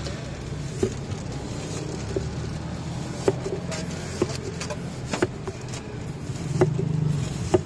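Sharp knife knocks about once a second, irregularly spaced, from a knife chopping through watermelon, over a steady low rumble of street traffic.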